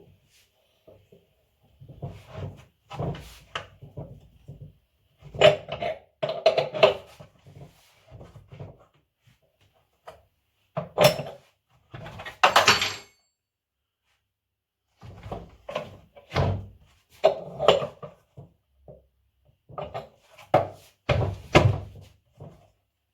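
Irregular knocks and clattering taps, in short clusters with pauses between them: metal parts being struck and handled while a new bearing is driven into the hub of a Samsung washing machine's drum.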